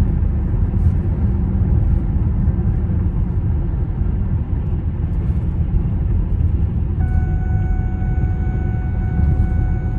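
Road and engine noise inside a moving car's cabin, a steady low rumble. About seven seconds in, a thin steady high tone joins it and holds.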